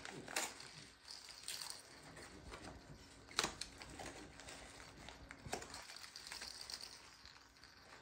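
Faint scuffling and scattered sharp clicks of a cat wrestling and kicking at a feather toy on a hardwood floor. The sharpest click comes about three and a half seconds in.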